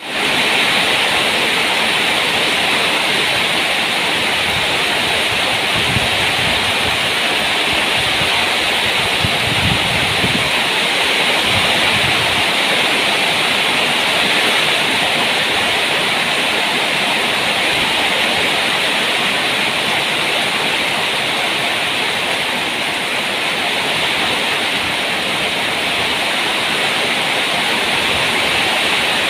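Heavy rain pouring down steadily, a continuous even hiss of falling water.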